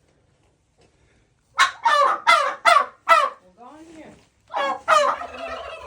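Poultry squawking loudly: five calls in quick succession, each falling in pitch, beginning about a second and a half in. A second loud burst of calls follows near the end.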